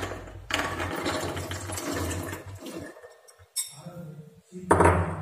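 Soaked chickpeas tipped from a glass bowl into an empty metal pressure cooker, sliding and rattling into the pot in one long rush, then two shorter pours near the end.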